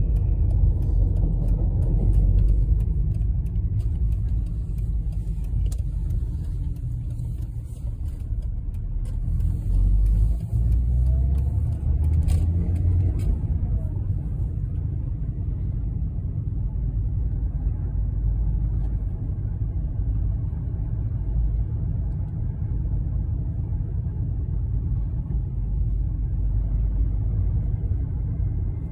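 Steady low rumble of road and engine noise inside a Mercedes-Benz car as it drives along, with a few faint clicks in the first half.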